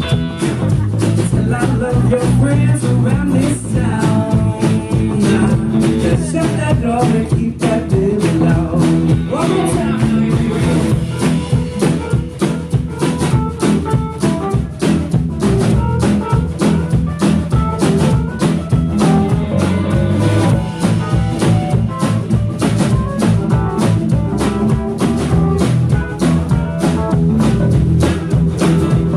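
Live rock band playing loudly: acoustic and electric guitars, electric bass and a drum kit keeping a steady beat.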